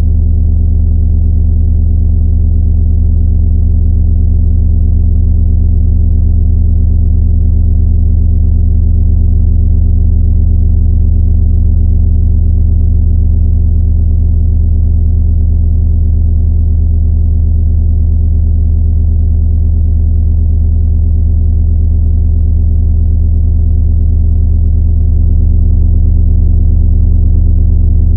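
Loud, steady electronic drone: several low synthesized tones held without change, strongest at the bottom, shifting slightly near the end.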